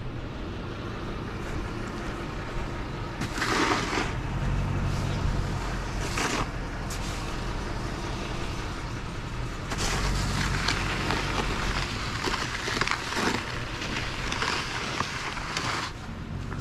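2009 Ford F-250 pickup's engine running steadily during snow plowing, with several bursts of rushing, hissy noise: two short ones, then a longer stretch from about ten seconds in.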